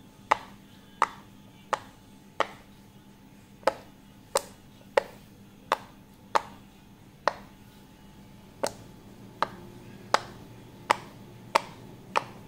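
Silicone pop-it fidget toy bubbles pressed in one by one with a finger, each giving a sharp pop. About sixteen pops, mostly well over half a second apart with a few slightly longer pauses.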